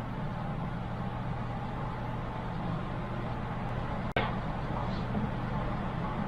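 Steady whirring hum of a running desktop computer, its fans and water-cooler pump, with one sharp click a little after four seconds in.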